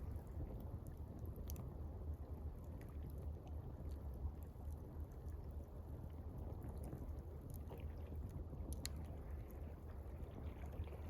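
Gentle water lapping over a steady low rumble, with a few faint, sharp crackles from a campfire.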